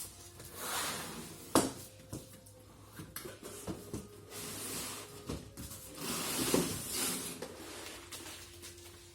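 Plastic parts and packaging of a cordless vacuum cleaner being handled while unboxed: two spells of rustling with scattered clicks and knocks, the loudest a sharp knock about one and a half seconds in.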